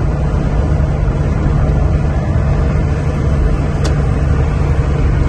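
Steady drone of a Scania truck's engine and road noise, heard inside the cab while cruising at highway speed, with one faint tick about four seconds in.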